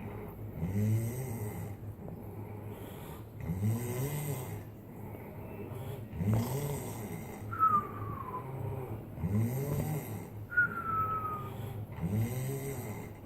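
A person snoring deeply while sleeping off a hangover: about five long, low snores, roughly one every three seconds. A short, high, falling whistle follows several of the later snores.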